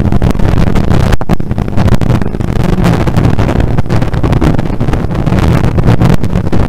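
Rally car engine running hard at high revs, with a brief break in the sound about a second in.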